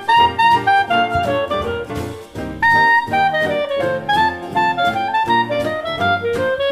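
Background instrumental music: a single melody line moving up and down over a steady beat.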